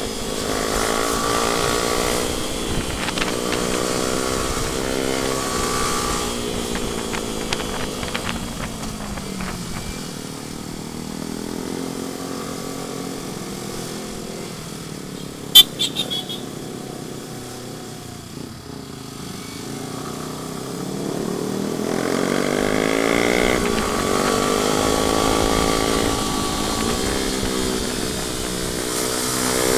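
Yamaha R15 single-cylinder sport bike engine revving up and easing off as the bike accelerates and slows, going quieter through the middle and climbing again near the end. About halfway through a sudden sharp knock, repeated a few times in quick succession, stands out above the engine.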